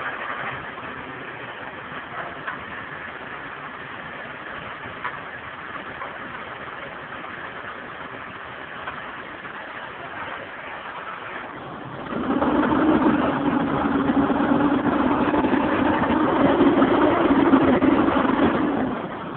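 Boom truck's diesel engine idling, then about twelve seconds in raised to a steady, louder higher speed for some seven seconds before dropping back to idle near the end. This is typical of the engine being sped up to drive the crane's hydraulics.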